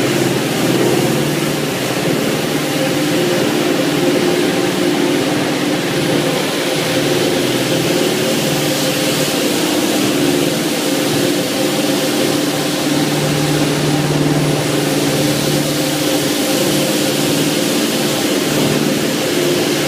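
BRS 320 automatic carpet washing machine running, its four gear-driven horizontal brushes scrubbing a wet, foamy carpet: a steady mechanical hum with a few held tones under an even hiss.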